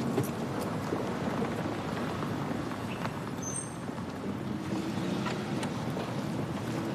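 Steady outdoor street background noise: a low hiss of distant traffic and wind.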